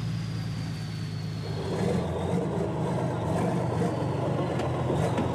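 Heavily loaded truck's engine running steadily as it drives over a dirt track. From about a second and a half in, a splashing wash joins it as the wheels push through muddy water.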